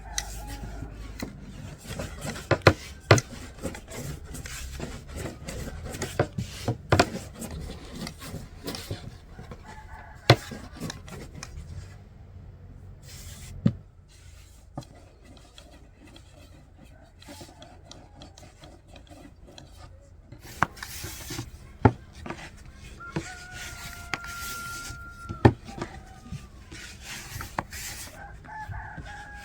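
Rubbing and scraping on a hard surface, with a dozen or so sharp knocks scattered through it. Chickens call now and then, including one steady call of about two seconds near the end.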